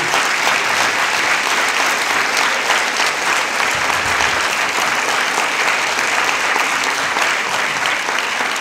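Audience applauding: many hands clapping together in a steady, dense patter that eases slightly near the end.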